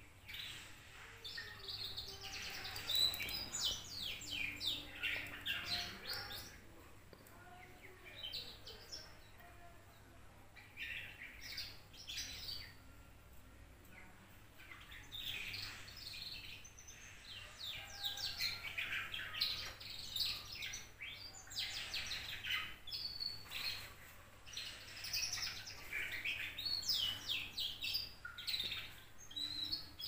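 Two-month-old canary twittering loudly: long runs of rapid, high chirping notes, broken by a few short pauses, the fast chattering practice song of a young bird.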